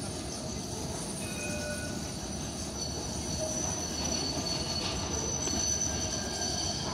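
E-class tram's steel wheels squealing as it rounds a tight curve in the track. The thin, high squeal grows louder over the last few seconds as the tram comes closer, over a low rumble.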